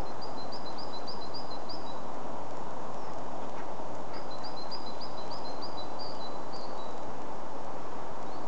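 A songbird singing two phrases of about eight quick repeated high notes each, the second a couple of seconds after the first, over a steady rushing outdoor background noise.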